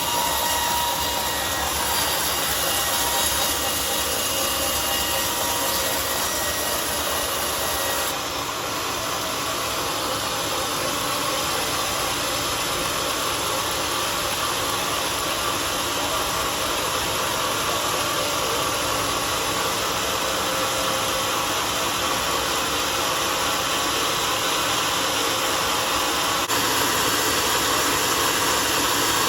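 Homemade sawmill running and sawing through a mahogany log: the motor and blade make a loud, steady noise of cutting wood.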